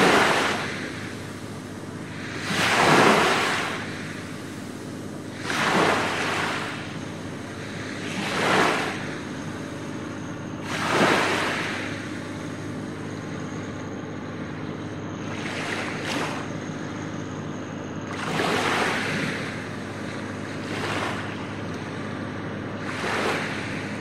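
Small waves breaking and washing up a sandy beach, each one a rush of surf that swells and falls away. There are about eight of them, every two to three seconds.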